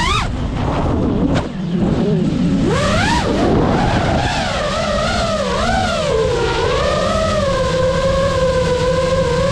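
Brushless motors and propellers of a 5-inch FPV racing quadcopter, heard from its onboard camera. The whine shoots up in pitch at the start and drops out briefly about a second and a half in, then swoops up and down through flips and dives before holding steady at cruising throttle.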